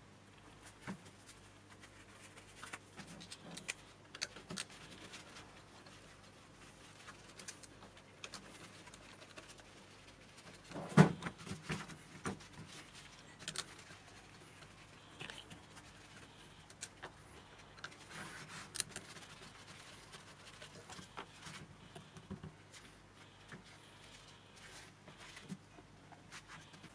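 Scattered clicks and knocks of small metal and plastic parts handled on a rubber workbench mat as a BMW E38/E39 auxiliary coolant pump and heater valve assembly is taken apart, its screws coming out; one louder knock about eleven seconds in.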